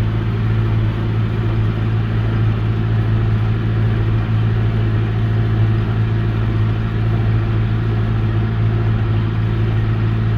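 John Deere 6120E tractor running steadily under load, driving a Ford 532 square baler through the field: a loud, even low engine drone with the baler's machinery running along with it.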